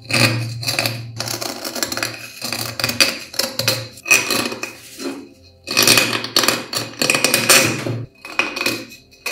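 A pointed metal pick scraping crust from inside a rusty metal gas-lamp fitting, in repeated gritty strokes with a thin metallic ring, pausing briefly about five seconds in and thinning out near the end.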